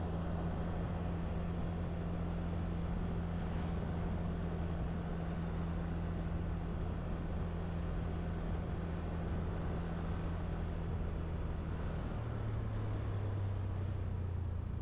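Engine of the vehicle carrying the camera running steadily as it drives along a street, a low hum whose note changes about twelve seconds in.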